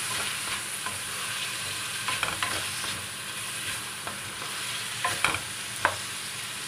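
Diced chicken breast with carrots and bell peppers frying with a steady sizzle in a stainless steel wok while a spatula stirs it, the spatula scraping and clicking sharply against the pan a few times around two and five seconds in.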